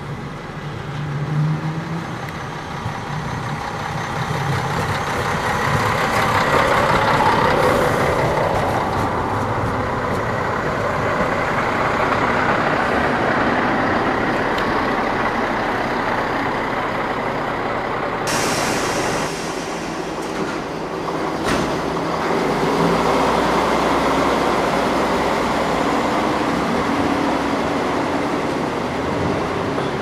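Diesel railcars running in a station: a Stadler Regio-Shuttle RS1 diesel multiple unit's engine running and building up as it pulls away, with a sudden hiss about two-thirds of the way in, then a steady diesel engine running again.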